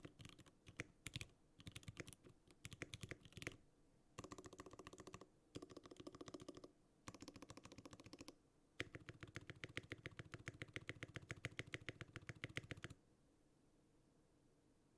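Typing on a gasket-mounted 60% mechanical keyboard with Gateron Yellow linear switches lubed with Krytox 205g0, a buttery sound. Scattered keystrokes give way to fast runs of typing, and the typing stops about thirteen seconds in.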